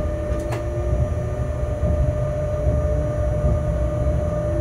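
Locomotive running along the track, heard from inside the cab: a steady low rumble with a steady tone over it and a fainter whine slowly rising in pitch, with a couple of brief clicks about half a second in.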